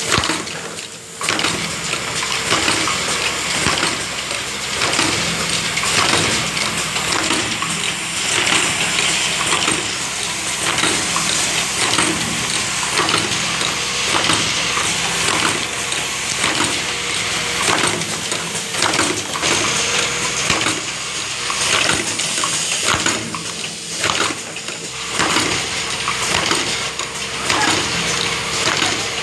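Automatic play-dough tub sorting and capping machine running: a continuous mechanical rush dense with small clicks and clatter as the tubs and caps are fed and capped, over a faint steady hum.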